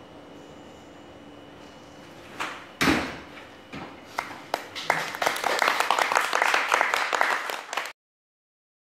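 Two loud knocks about two and a half seconds in, then a small group of people applauding, the clapping building up and then cut off abruptly near the end.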